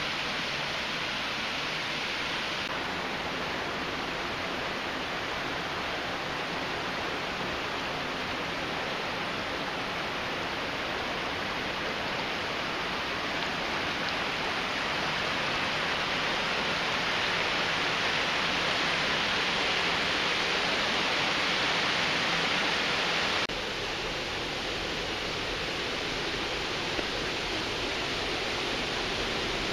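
Shallow creek water rushing over a sandstone streambed and a small cascade, a steady hiss. It swells a little in the middle, then drops abruptly about 23 seconds in to a quieter, lower wash.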